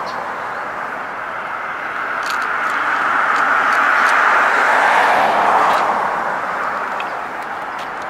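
Passing road traffic: a vehicle's tyre and road hiss swells to a peak about four to five seconds in, drops a little in pitch, then fades away.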